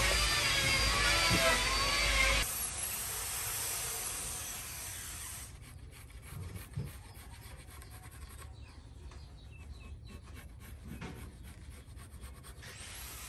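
Electric hand planer running on a hardwood plank, stopping abruptly about two and a half seconds in, followed by a fading hiss. Then a pencil scratches along the wood in quick strokes, drawing a marking line.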